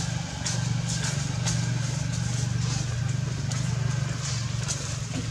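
A steady low mechanical hum runs throughout, with short crackling rustles of dry leaves as macaques move over them.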